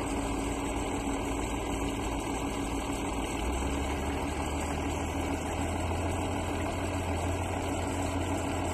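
Ursus tractor diesel engine running steadily, with a constant hum over a low rumble that grows deeper and stronger about three and a half seconds in.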